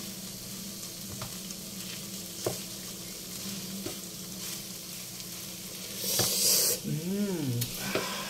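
Chicken and vegetables sizzling in a nonstick frying pan as they are stirred with a spatula, with a few light taps of the spatula on the pan. Near the end the hiss briefly gets louder, followed by a short hum.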